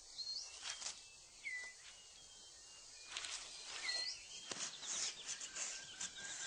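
Tropical rainforest ambience: birds giving short whistled calls every second or so, several sliding down in pitch, over a few faint rustles and clicks.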